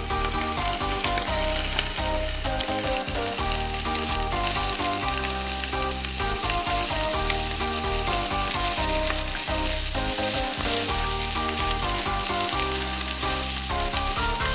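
Plant-based chicken strips and sliced red onion sizzling steadily in a hot nonstick frying pan as they are stirred with wooden chopsticks, under background music with a melody and bass line.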